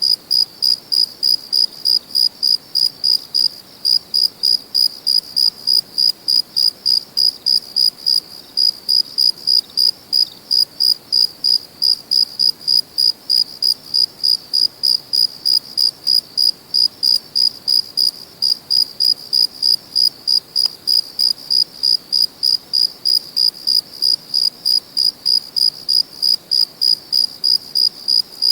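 A cricket chirping steadily, about three short high-pitched chirps a second on one clear note, over a faint background hiss.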